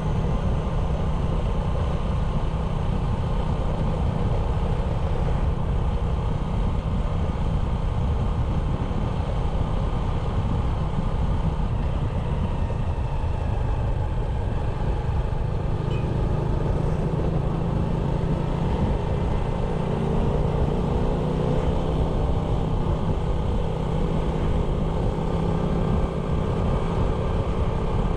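Small 97cc motorbike engine running steadily while riding, over a strong low rumble. About halfway through the engine note starts to rise slowly in pitch.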